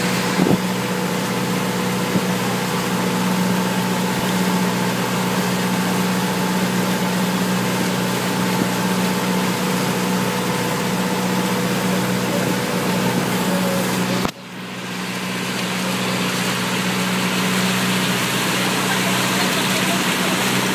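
Outrigger boat (bangka) engine running at steady cruising speed, a loud, even drone over a rush of noise. About fourteen seconds in the sound drops out suddenly and swells back over a couple of seconds.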